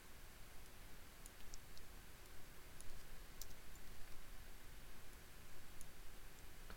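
Faint computer mouse clicks, a few at irregular intervals, over a low steady hiss.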